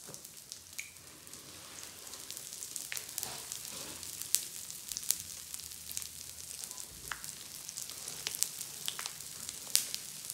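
Pop Rocks candy crackling in clear slime as hands press into it: a steady fizz with scattered sharp pops.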